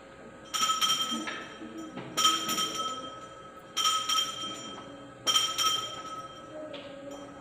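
Altar bells shaken four times, about a second and a half apart, each a bright jangle of several small bells that rings out and fades: the signal for the elevation of the consecrated host at Mass.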